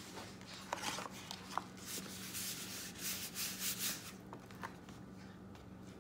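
Hands rubbing and pressing over a closed paper journal page to press wet acrylic paint onto the facing page: a run of irregular dry swishing strokes, easing off about four seconds in.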